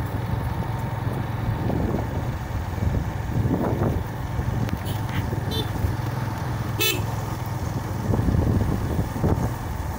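Engine of a truck loaded with sugarcane running steadily as it drives along a rough dirt track. There is a brief sharp sound about seven seconds in.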